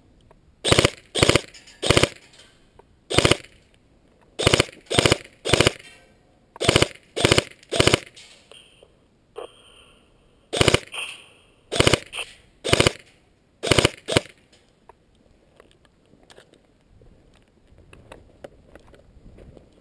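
Automatic gunfire in short bursts, each about a quarter second of rapid shots, in groups of two or three. About fifteen bursts over the first fourteen seconds, then it stops.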